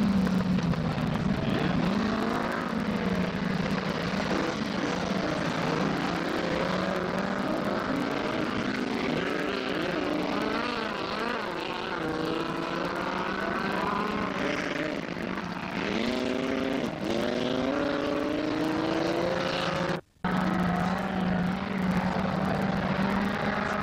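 Autocross race car engines revving and accelerating on a dirt track over a steady low engine drone, with several engines rising in pitch together about two-thirds of the way through. The sound cuts out for a moment near the end, and the steady drone returns after it.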